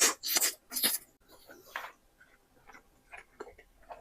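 Eating-show table sounds: a few short, crisp crackles in the first two seconds, then fainter scattered clicks and rustles as food is handled or eaten.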